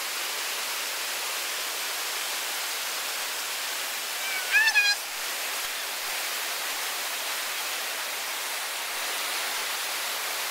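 Steady rushing of a river rapid's whitewater at about 2000 cfs, with a short high-pitched call about four and a half seconds in.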